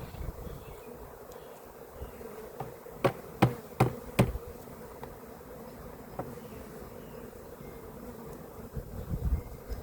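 Many Carniolan honeybees buzzing steadily in a mass, with four sharp knocks in quick succession about three seconds in.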